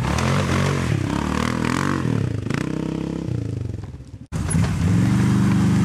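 Quad engine revving up and down in repeated swells, then fading away. After an abrupt cut about four seconds in, another quad engine runs at steady revs.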